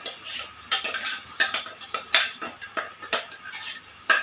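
Spoon scraping and clinking against a bowl and a stainless steel pot as thick tomato-onion paste is scooped out and dropped in: a string of sharp knocks and scrapes, about two a second.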